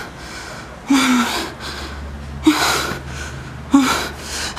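A person's short, breathy gasps, four in a row, coming about every second or so.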